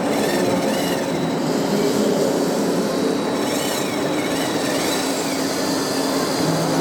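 Large radio-controlled construction machine models running: a steady electric motor and hydraulic pump hum, with short whines that rise and fall in pitch several times as the machines work.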